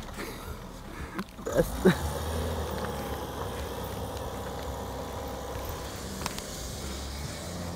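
Car engine running steadily at low revs as the car drives slowly through snow, with two short louder sounds about one and a half and two seconds in.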